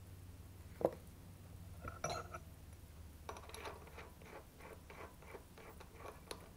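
Metal tools clinking as a drill bit is handled and set down, then a run of short, even clicks, about three a second, as the milling machine's drill chuck is turned by hand to tighten it on a new bit.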